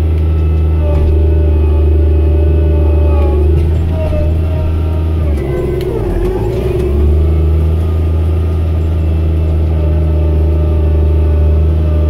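Challenger MT765 tractor's diesel engine running steadily, heard inside the cab. Its note dips and falters briefly about halfway through, then recovers.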